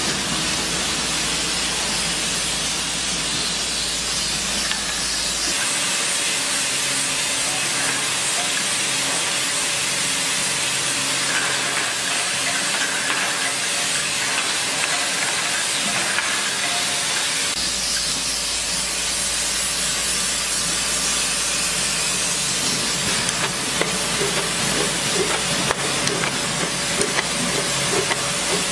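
Automatic motor-oil filling and capping line running: a steady hiss with a faint machine hum underneath.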